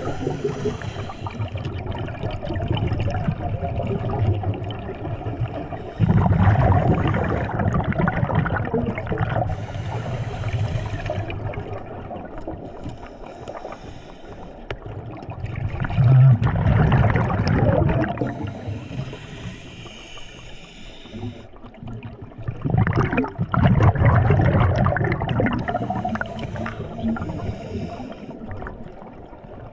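Underwater sound of a scuba diver breathing through a regulator, with exhaled bubbles gurgling. It swells and fades in repeating breath cycles every several seconds.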